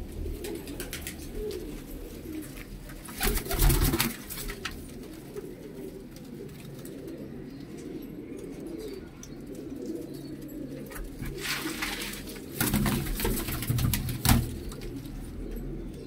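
A flock of domestic pigeons cooing continuously in a loft, a low overlapping murmur. Two louder bursts of rustling break in, about three seconds in and again after about twelve seconds.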